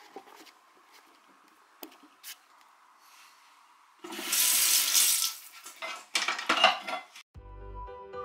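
A few light clinks of dishes in a sink. About four seconds in, the kitchen tap is turned on and water gushes into a non-stick frying pan, splashing as the pan is tipped and handled. Background music starts near the end.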